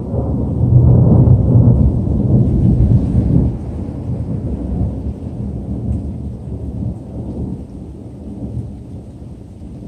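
Thunder rumbling. It swells at once to its loudest in the first three and a half seconds, then rolls on more quietly and slowly dies away.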